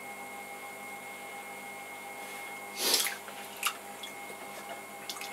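Electric potter's wheel running with a steady hum and a thin high tone. About three seconds in, a hand splashes into a bucket of throwing water, with a smaller splash just after.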